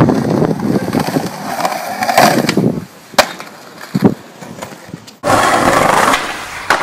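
Skateboard wheels rolling over rough concrete, then two sharp clacks of the board about three and four seconds in. After an abrupt cut about five seconds in, a louder steady rolling and scraping noise from a skateboard.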